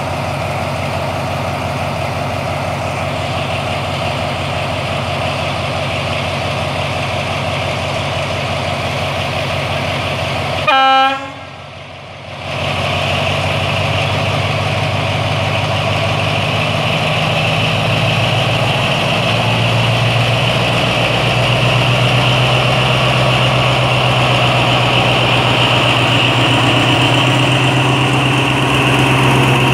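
Alsthom AHK diesel locomotive No. 4230 running with a steady engine hum while standing, then giving one short horn toot about eleven seconds in. Its engine then gets louder, building further from about eighteen seconds, as it hauls the train out of the station.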